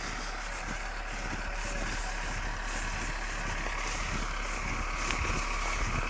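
A bulldozer's engine running steadily at a distance, a constant low rumble.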